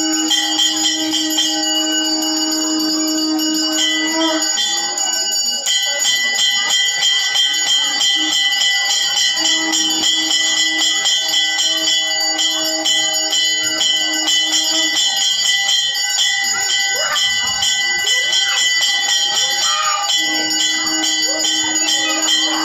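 Temple bells ringing rapidly and without a break during a puja. A steady held tone rises over them in long stretches of several seconds, stops near the middle and comes back near the end.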